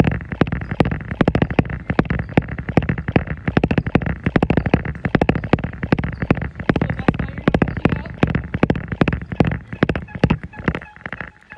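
Jogging footfalls thudding on a treadmill belt in a quick, even rhythm of about three steps a second, over the steady running of the treadmill. The steps thin out near the end.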